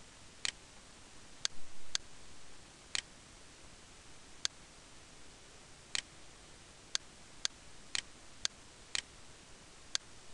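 Computer mouse button clicking, about a dozen sharp clicks at irregular intervals.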